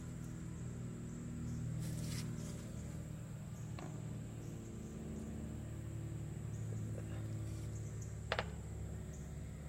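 Trane XB10 central air-conditioner condensing units running, their Copeland reciprocating compressors and condenser fans giving a steady low hum with a thin high steady whine over it. A sharp click comes near the end.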